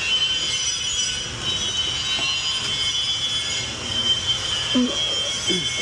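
A steady high-pitched whine with a low hum beneath it, with a brief vocal sound near the end.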